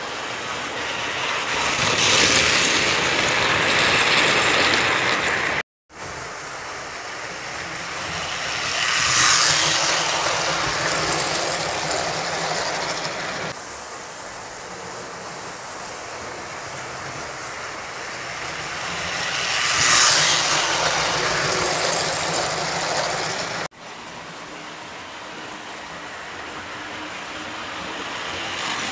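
American Flyer S gauge toy trains running past on metal track, a rattling rush of wheels and motors. It swells loud as each train passes close, three times, and breaks off abruptly twice between shots.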